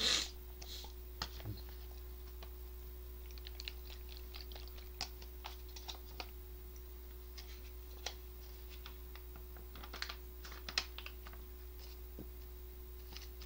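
Faint scattered clicks and light taps, some in quick runs like typing, over a steady faint hum.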